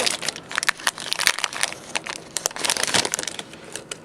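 Foil booster pack wrapper crinkling and crackling as it is handled and opened, the rustle dying down near the end.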